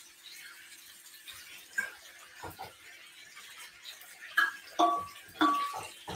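Quiet kitchen background with a faint steady hum, then a few short clinks and knocks in the last two seconds, some with a brief ring.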